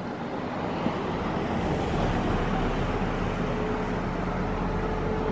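A vehicle approaching on the road, its engine and tyre noise growing steadily louder.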